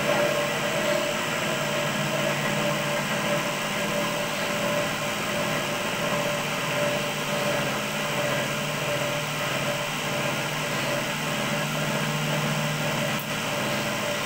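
Cotton candy machine running, its motor-driven spinning head giving a steady hum and whir.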